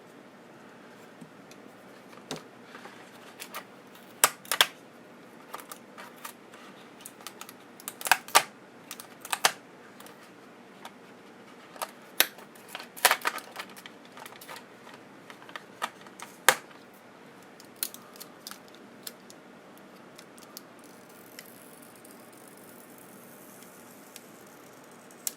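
Irregular sharp clicks, taps and knocks of small plastic and metal parts being handled and pulled apart on a CD/DVD changer mechanism, thickest in the middle and thinning out toward the end.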